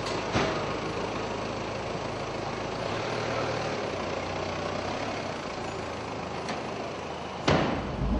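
Minibus engine running, a steady low hum under a wash of noise. A sudden louder noise comes near the end.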